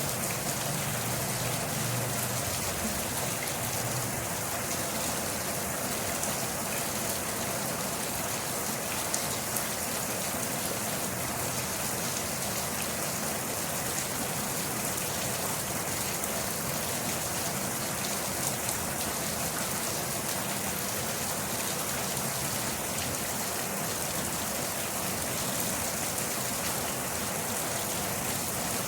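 Steady rain falling, an even hiss with fine patter of drops on a surface.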